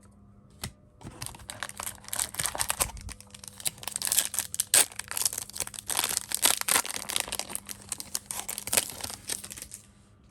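Hockey card pack's wrapper crinkling and tearing as it is opened, a dense run of crackles that starts about a second in and stops just before the end.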